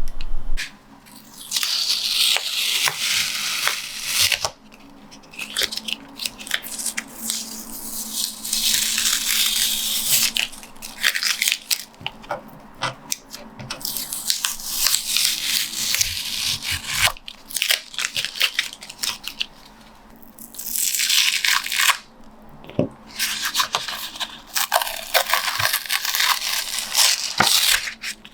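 Sheets of printmaking paper being handled and rustled, in repeated rustling bursts of a second or more, with small clicks and taps between them.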